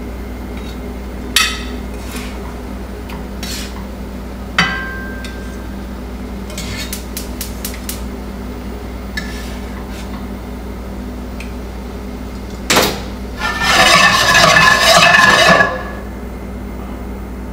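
Metal tongs clicking and tapping against a stainless-steel skillet and a ceramic plate as fish fillets are lifted out, with one ringing metal clink about four and a half seconds in. Near the end, a loud clank and about two seconds of metal scraping as the skillet is moved on the cast-iron grate of the gas range, over a steady low hum.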